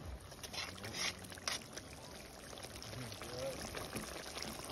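A pot of fish and vegetables boiling hard, bubbling steadily, with a few short clinks and scrapes of stirring in the first second or so. Faint voices in the background.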